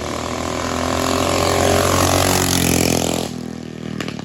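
Mega Moto 80 mini bike's single-cylinder engine running at full throttle in a flyby: it grows louder as it approaches, its pitch drops as it passes, and the sound falls away sharply a little after three seconds.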